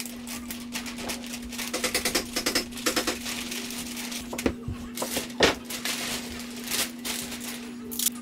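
Polyethylene plastic sheeting crinkling and rustling as it is handled and taped up, in quick irregular crackles, with two sharper knocks about halfway through, over a steady low hum.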